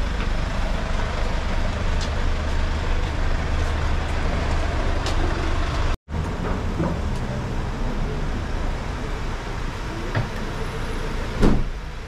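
Steady city street traffic noise with a deep low rumble. The sound cuts out for an instant about halfway through, and there is one sharp knock near the end.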